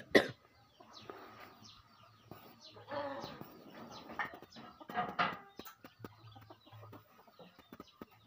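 Chickens clucking with short, irregular calls, the loudest bouts about three and five seconds in. Two sharp knocks right at the start.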